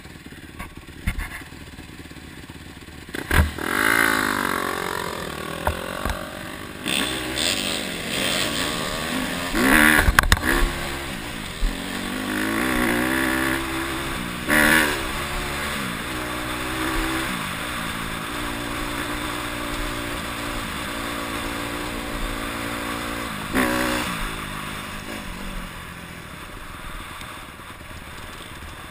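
Honda CRF150R dirt bike's single-cylinder four-stroke engine accelerating through the gears, its pitch rising and dropping back with each shift, with several sharp knocks from the bike crossing rough ground. Near the end it settles to a quieter, steadier run.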